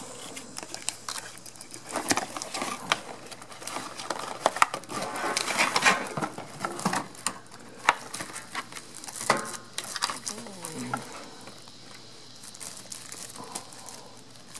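Plastic wrapping and cardboard packaging crinkling and rustling as they are handled, with scattered sharp crackles and light taps.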